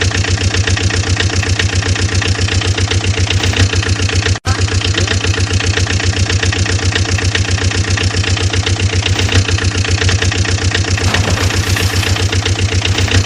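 Engine running steadily with a fast, even chugging beat, cut off for an instant about four and a half seconds in.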